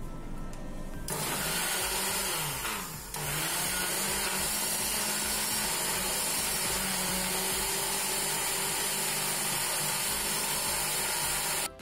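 Countertop electric blender starting up with a rising whine about a second in, pausing briefly near three seconds, then running steadily as it purées frozen strawberries, blueberries and yogurt into a smoothie, and cutting off just before the end.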